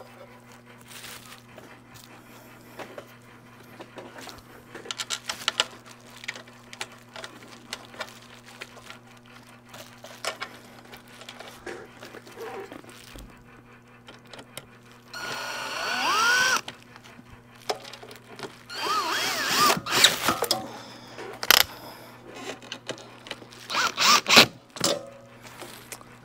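Cordless drill/driver driving screws into the metal chassis of a Mazda Connect audio unit and its bracket: three short runs, the motor whine rising as each starts, about 15 s in, around 19–20 s and briefly near the end. Clicks and knocks of parts being handled come in between.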